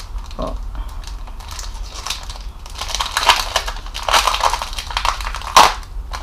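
Clear plastic packaging sleeve being pulled open and handled, crinkling and crackling. It grows louder from about three seconds in, with one sharp crackle near the end.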